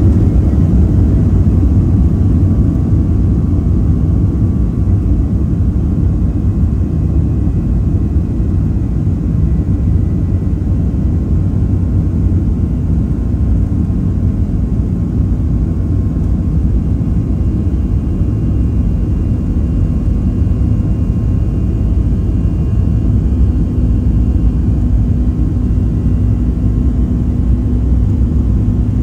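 Cabin noise inside a Boeing 737-800 taxiing: a steady low rumble from its CFM56-7B turbofan engines at low power, with faint whining tones above it.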